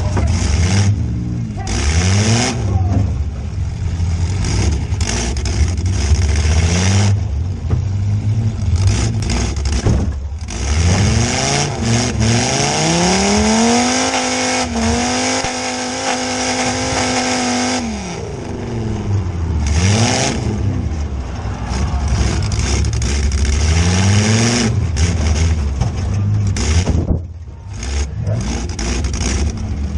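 Demolition derby car's engine revved hard, heard from inside the cab, its pitch climbing and falling again and again as the throttle is worked. About halfway through it climbs and holds near redline for several seconds before dropping back.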